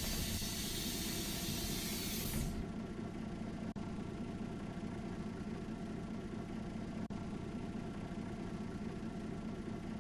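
Bus pneumatics releasing compressed air with a loud hiss that stops about two and a half seconds in, over the bus's steady engine rumble.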